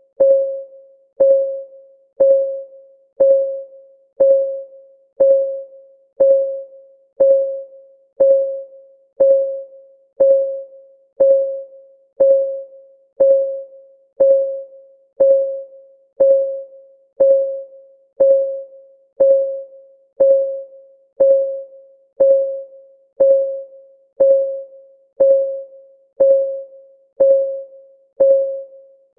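Countdown timer's clock-ticking sound effect: one short, pitched tick every second, each starting sharply and fading quickly, in a steady even rhythm.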